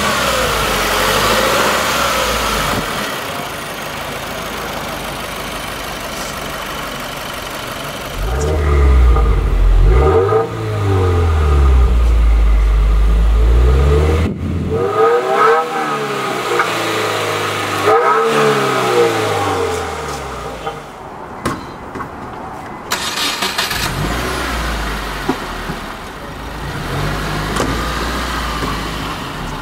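A 2015 Subaru WRX's turbocharged 2.0-litre flat-four idling, then revved up and let fall back several times in the middle, heard at the engine bay and the twin-tip exhaust, before settling back to idle.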